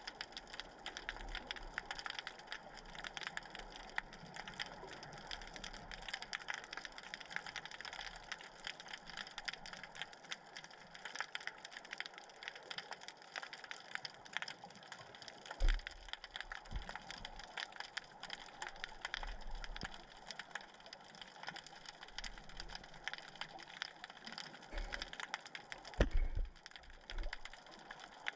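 Underwater crackle of many fine, rapid clicks, with a few low thumps, the loudest about 26 seconds in.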